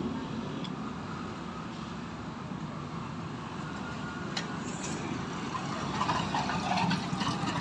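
Steady street traffic noise, a low vehicle engine rumble under an even background hiss.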